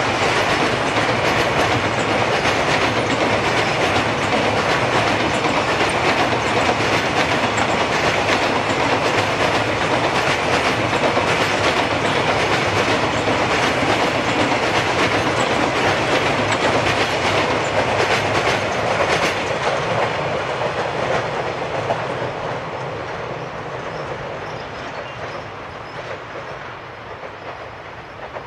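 Freight train of Type "O" covered wagons rolling past, the wheels clattering over the rail joints in a steady clickety-clack. From about twenty seconds in the sound fades as the end of the train passes and draws away.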